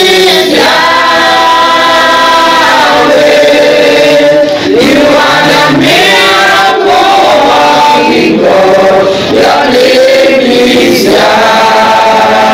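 A small group of men and women singing a Christian worship song together, in phrases of long held notes.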